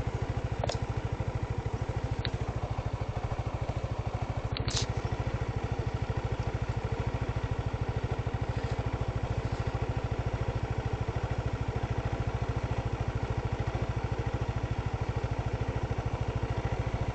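An engine running steadily with an even, rapid pulse, with a few short clicks in the first five seconds.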